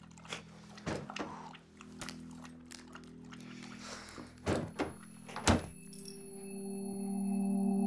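Light knocks and clinks of items being handled in an open refrigerator, then a solid thunk about five and a half seconds in, the refrigerator door shutting. Near the end a steady droning music tone swells in.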